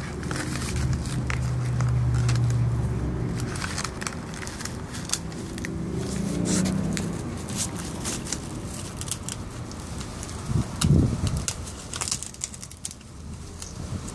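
A kelpie puppy chewing and tearing a dry, papery plant husk: irregular crisp crackles and rustles, with one louder low muffled bump late on.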